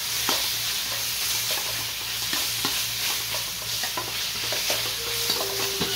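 Food frying in a pan with a steady sizzle while it is stirred, with scattered light clicks and scrapes of the utensil against the pan.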